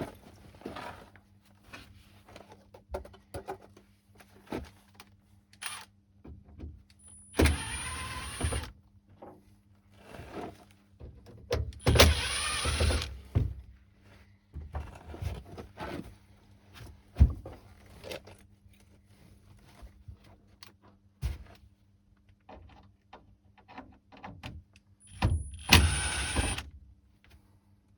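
A small electric motor whirs in three short bursts of about a second each, around a quarter, halfway and near the end. Scattered clicks and knocks of handling fall between the bursts.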